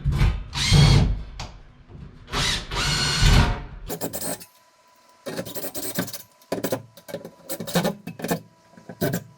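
Power drill running under load in two bursts of about a second and a half, working into the ceiling for the fixture's mounting anchors. Through the second half come a series of short knocks and clicks.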